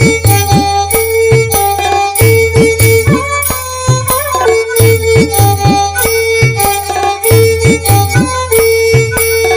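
Instrumental Santali folk music: a steady drum rhythm whose strokes fall in pitch, under a held melody line.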